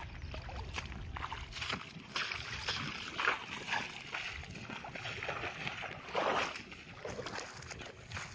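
Footsteps splashing irregularly through shallow water and wet grass, with louder splashes about three and six seconds in.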